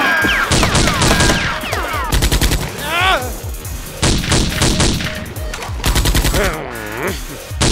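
Automatic gunfire sound effects: about four short, rapid bursts of shots, over background music.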